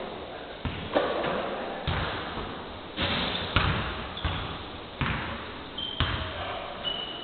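Basketballs bouncing on a hardwood court in an echoing gym: about ten irregular thuds from dribbling and passing, with two short high squeaks near the end.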